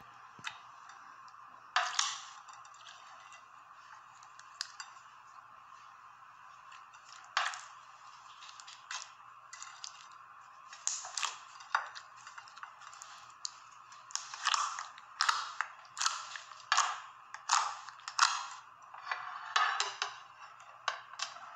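Clear slime with play-doh lumps being pressed and squeezed under plastic cling film, giving sharp crackles and pops that come more often in the second half, over a steady hiss.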